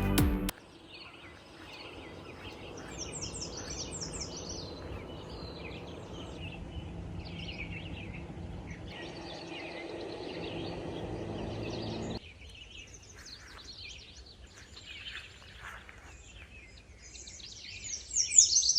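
Small birds chirping and calling over steady outdoor background noise. The background noise drops about twelve seconds in, and near the end a louder, closer burst of high chirps comes.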